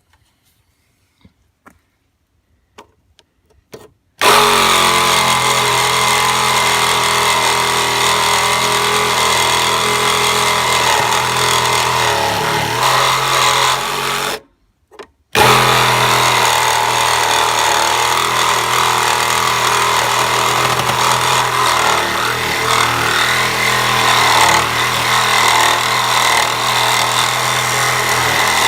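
A few faint clicks, then a power tool cutting through an old truck door hinge pin, running steadily for about ten seconds, stopping briefly, then starting again and running on.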